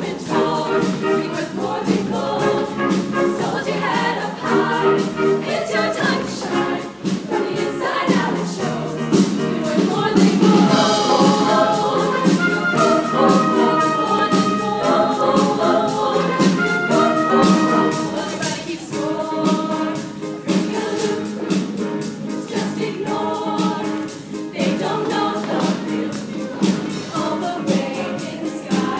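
Show choir singing with a live backing band, over a steady beat.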